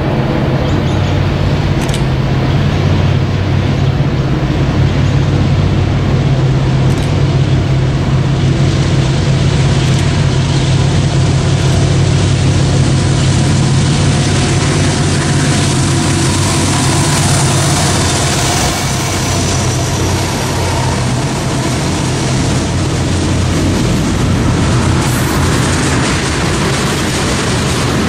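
Norfolk Southern freight train's two diesel locomotives approaching under power with a steady low engine drone. They pass a little over halfway through, and the drone gives way to the steady rolling noise of tank car wheels on the rails.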